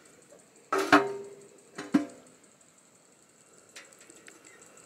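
Two metal clanks on a stainless steel stockpot, a second apart, each ringing briefly like a lid being set on the pot, followed by a faint click.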